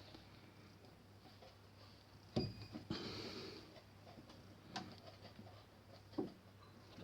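Faint clinks and knocks of metal tools and parts being handled while a tight bolt is unscrewed during disassembly of a workpiece setup, with a short rasping scrape about three seconds in. A low steady hum runs underneath.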